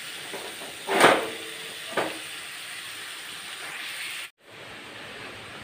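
Sliced gourd and potato frying in oil in a steel kadai, a steady sizzle, with a metal clank of the spatula against the pan about a second in and a lighter click a second later. The sizzle cuts off abruptly just after four seconds, leaving a quieter steady hiss.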